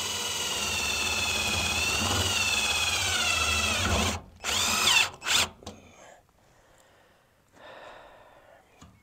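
Power drill driving a screw to fasten sheet tin: a steady whine for about four seconds, then two short bursts that spin down.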